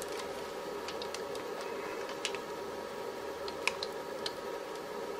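Faint, scattered clicks from a NanoVNA-F analyser's controls being pressed as its marker is stepped down in frequency, about eight over a few seconds, over a steady room hum.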